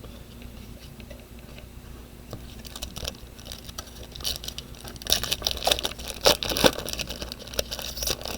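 Baseball cards being handled and flipped through by hand: a run of light clicks, rustles and scrapes that grows busier and louder about halfway through.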